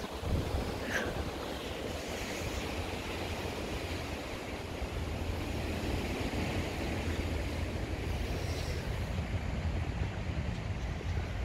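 Strong wind blowing across the microphone: a steady low rumble and rushing noise.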